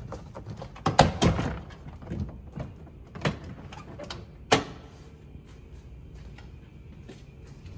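Tesla Model Y's plastic frunk bin being worked loose and lifted out of the car: a few sharp knocks, the loudest about a second in and again about four and a half seconds in, then quieter handling.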